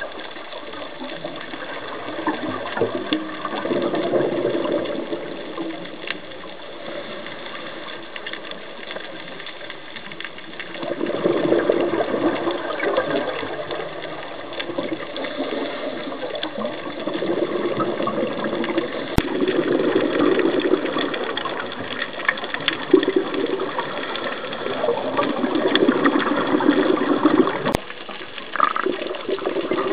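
Scuba diver breathing through a regulator underwater: surging gushes of exhaled bubbles every few seconds over a steady background hum.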